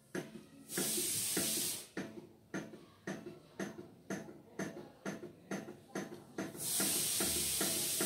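Flame-heated hot-air (Stirling) table fan running, its engine knocking in a regular beat of about two strokes a second. Two spells of loud hiss come in, one about a second in and one near the end.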